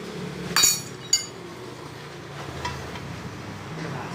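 Steel tyre lever clinking twice against metal, about half a second apart, each clink ringing briefly, as it is taken up to lever a tubeless tyre's bead over a motorcycle rim.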